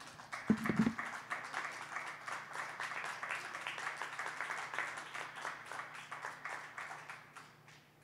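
Audience applauding, a dense patter of many hands clapping that fades out near the end, with a brief voice near the start.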